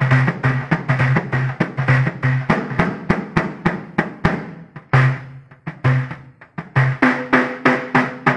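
Large hand-held frame drum beaten in a steady rhythm: deep strokes about twice a second with lighter, sharper strokes between them.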